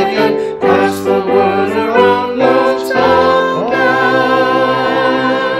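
Slow music with a solo singing voice over accompaniment. About two-thirds of the way in it settles on a long held note with vibrato.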